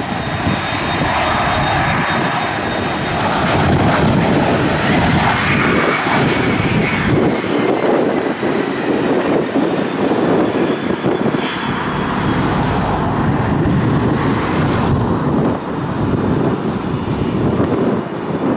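Cessna Citation CJ2+ business jet's twin Williams FJ44 turbofan engines running as it moves slowly along the runway: a steady jet rumble with a thin high whine that rises a few seconds in and then slowly falls away.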